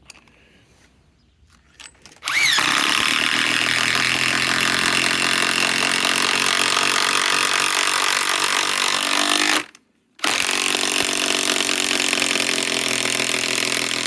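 DeWalt DCF891 cordless mid-torque impact wrench driving a 10-inch lag bolt. It spins up about two seconds in and hammers for about seven seconds, stops briefly, then hammers again.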